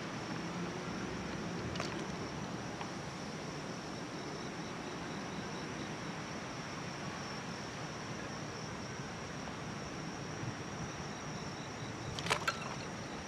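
Night-time pondside ambience: insects keep up one steady, high, unbroken drone over a low hiss, with a few sharp clicks near the end.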